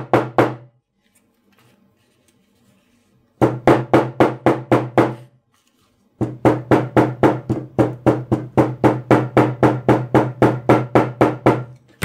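Shoemaker's hammer tapping rapidly on glued, overlapped leather on a work table, flattening the glued strap over the back seam. The blows come about four to five a second, each with a low ring: a short run at the start, another from about three and a half to five seconds, then a long steady run from about six seconds until just before the end.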